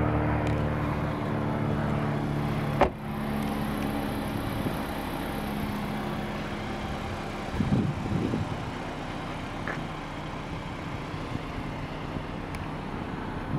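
The Honda Accord sedan's rear door shuts with one sharp thump about three seconds in, over a steady car engine hum that continues afterwards, a little quieter. A brief low rumble comes about eight seconds in.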